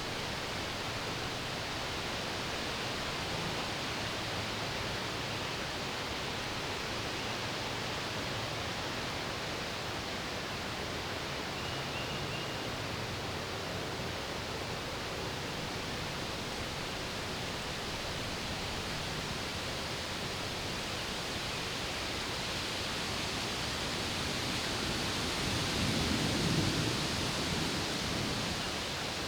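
Steady wind hissing through trees, swelling louder with a deeper rumble near the end.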